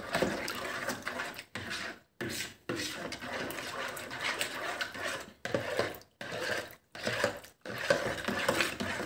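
Metal teaspoon stirring and scraping in a plastic bowl of warm water, dissolving yeast, sugar and salt for bread dough, in a run of strokes broken by short pauses.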